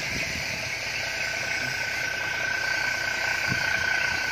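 A 750-horsepower Cummins marine diesel engine on a fishing boat running steadily, with a steady high whine that grows stronger over the second half.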